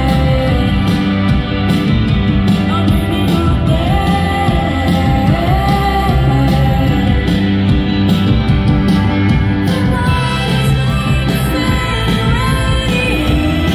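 A live indie pop band playing a song loudly: a sung lead vocal over electric guitars, bass and drums, heard from within the audience.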